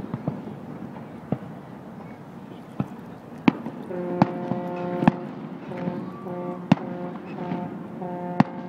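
Aerial fireworks shells bursting in a string of sharp bangs and pops, about eight in all, the loudest about three and a half seconds in. From about four seconds in, a held low pitched tone also sounds in repeated stretches that start and stop.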